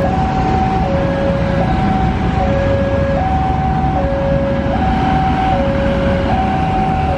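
Railway level-crossing warning alarm sounding a steady two-tone signal, a lower and a higher tone alternating, each held just under a second. It warns that a train is approaching while the barriers are down. Traffic noise from passing cars and motorcycles runs underneath.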